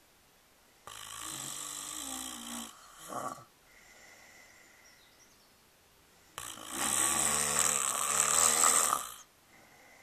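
Snoring in sleep: two long snores. The first starts about a second in, runs nearly two seconds and ends with a short catch. The second, louder one starts past the middle and lasts nearly three seconds.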